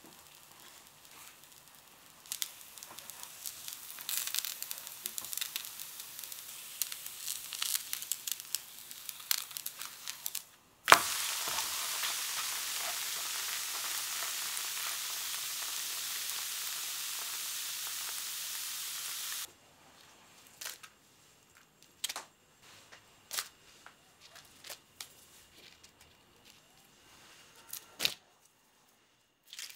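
Crepe batter frying in a steel frying pan over a gas flame: first a faint crackling sizzle with small pops, then, after a sharp click, a louder steady sizzling hiss for about eight seconds that stops abruptly. Afterwards there are only soft taps and papery rustles as thin cooked crepes are handled with a spatula and laid on a stack on a plate.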